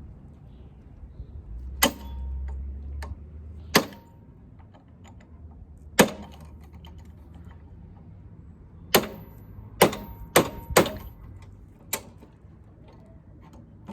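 Hammer tapping a small metal pin into the deck lift button on a lawn tractor's lift handle: about eight sharp metallic blows, some ringing briefly, irregularly spaced, with a quick run of four near the middle.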